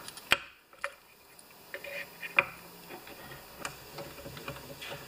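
Scattered light clicks and taps of small chainsaw parts being fitted together by hand as the carburetor and choke deflector go into the Homelite XP 1020 chassis. The clicks are sharp and separate, about a second apart.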